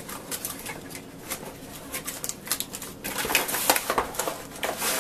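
Cardboard packaging being handled: a white cardboard box insert gripped, shifted and lifted, giving scattered light taps, scrapes and rustles that grow busier in the second half.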